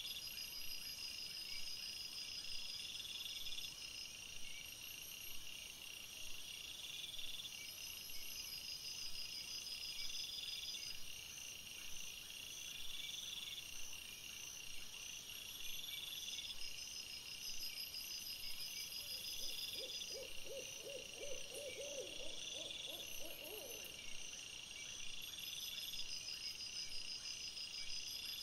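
Night-time chorus of calling animals: trills about a second long repeat roughly every two seconds, with fainter high pulsing above. From about nineteen seconds in, a lower, rapidly pulsed call sounds for about four seconds.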